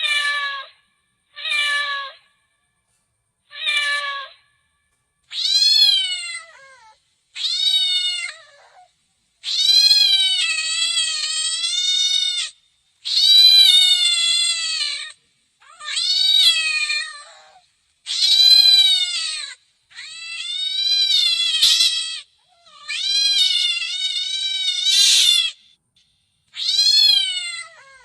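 Domestic cat meowing over and over: a few short meows, then longer, drawn-out meows that rise and fall in pitch, each one separate.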